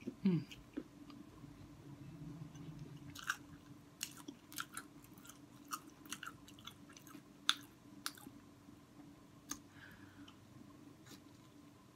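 Close-up chewing and biting of hot Cheeto fried pickles, the crisp coating giving irregular sharp crunches, loudest just after the start and again about seven and a half seconds in.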